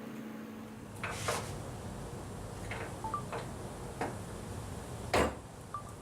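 Scattered clicks and knocks of tools and bike parts being handled, about six separate ones, the loudest a little after five seconds in.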